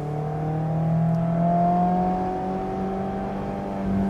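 Mazda MX-5 Miata's four-cylinder engine through a Good-Win Racing race exhaust, pulling under acceleration in a lower gear, its note rising slowly and steadily.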